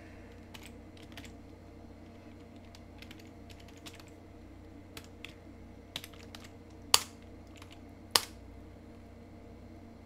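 Scattered keystrokes on a computer keyboard, with two louder, sharper key presses about seven and eight seconds in.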